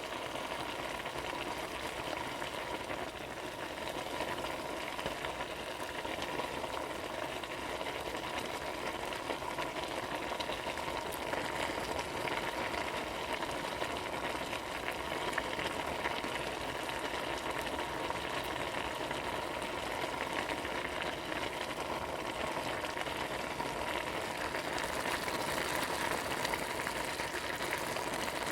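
Food frying in a pan: a steady sizzle full of small crackles and pops, with a faint steady hum underneath.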